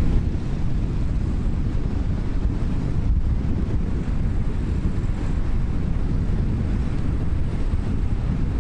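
Steady low rumbling wind noise on the microphone, as from riding a bicycle, with no break or change.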